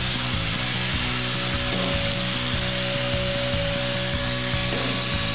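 Steady harsh hiss of metalworking on the steel carrier plate, heard under background music with a repeating chord pattern.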